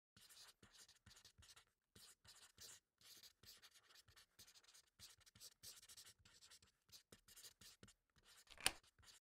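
Faint scratching of a pencil writing on paper: many short, irregular strokes, with one sharper stroke near the end.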